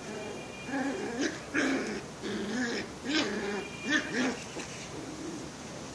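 Two puppies play-fighting, giving a string of about seven short growls and yelps. The calls start about a second in and die away by about four and a half seconds in.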